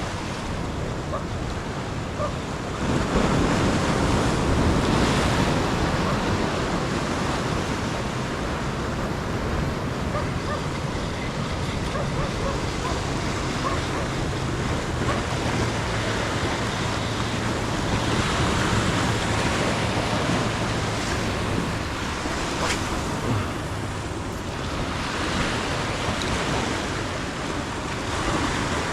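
Ocean surf washing and breaking along the shore, with wind; the waves surge louder about three seconds in and a few more times later.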